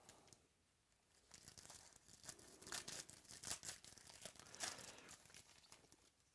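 Crinkling and rustling of trading-card packaging being handled: a run of small scratchy, crackling sounds that starts about a second in.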